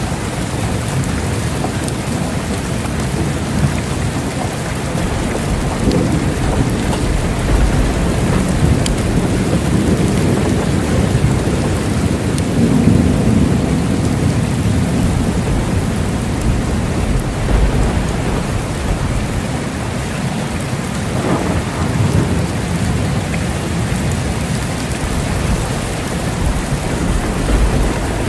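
Steady rain falling in a thunderstorm, with low rolling thunder that swells and fades several times: about a fifth of the way in, again near the middle, and most sharply about three quarters through.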